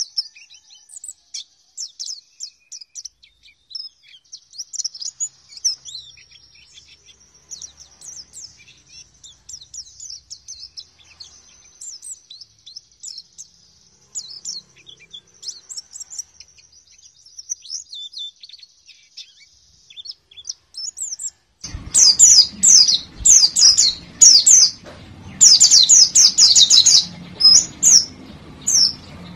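White-eyes (pleci) twittering in high, thin chirps, soft and sparse at first. About three-quarters of the way through, the sound jumps to much louder, denser bursts of chirping over a background hiss.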